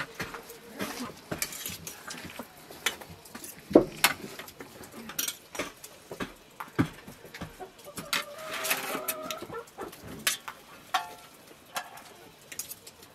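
Scattered clinks and knocks of dishes, pots and utensils being handled, with a stronger knock about four seconds in. A short wavering call, like a hen's clucking, comes a little after eight seconds in.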